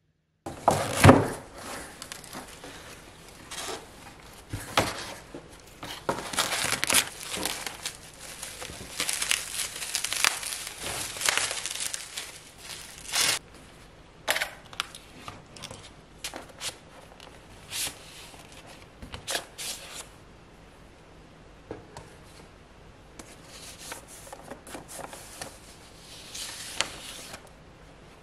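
Wrapping being handled, crinkled and torn open in a run of crackly rustles and rips. It is loudest in the first half and grows sparser and quieter after about twenty seconds.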